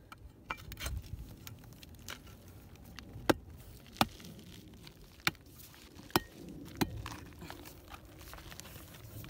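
A metal digging bar with a flat blade striking and prying into hard, dry cracked clay, making a handful of sharp knocks. Between them comes the faint crumble and scrape of breaking clods.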